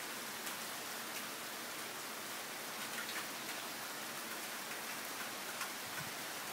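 Steady rain falling on wet pavement and parked cars, with scattered sharper drop ticks.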